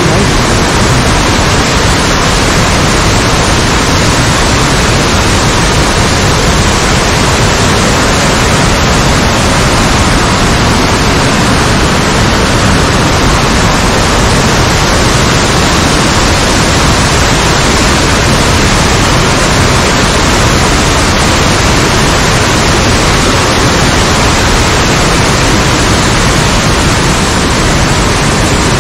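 Water of Ryuzu Falls cascading down its rock bed: a loud, steady rush with no let-up.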